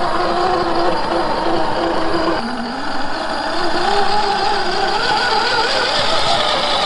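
Scale RC crawler's electric motor and geared drivetrain whining, the pitch wavering and rising and falling with the throttle as it climbs over dirt. The whine jumps lower about two and a half seconds in, then climbs again.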